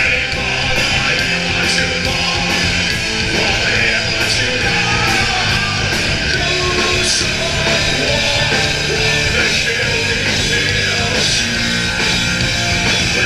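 Heavy rock band playing live at full volume: electric guitar, drums with repeated cymbal crashes, and a vocalist singing into a microphone, heard close to the stage.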